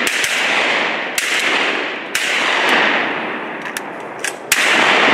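Several shotgun blasts fired at flying ducks, one after another. The strongest come at the start, about a second in, about two seconds in and near the end, and each trails off in a long rolling echo across the pond.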